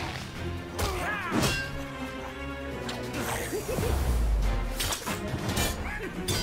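Soundtrack of an animated fight scene: action music under several sharp weapon clashes and hits, with a deep rumble about four seconds in.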